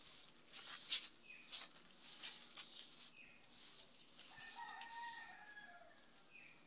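A rooster crowing faintly, one call about four seconds in that drops in pitch as it ends. Before it come a few short rustles.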